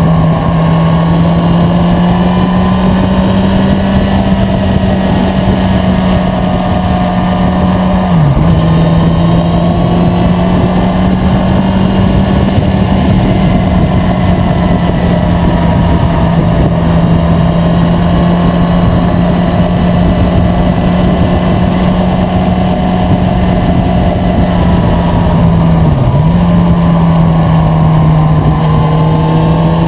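Motorcycle engine running steadily at cruising speed over a constant rush of wind. The engine note dips sharply for a moment twice, about eight seconds in and again near the end.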